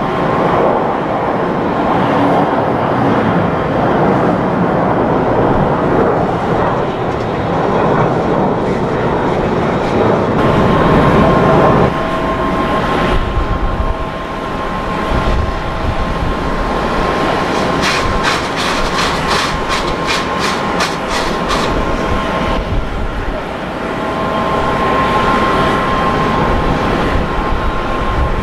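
Boeing 777-300ER's GE90 jet engines running steadily as the airliner rolls out and taxis after landing, with a steady engine whine. A quick run of clicks comes partway through.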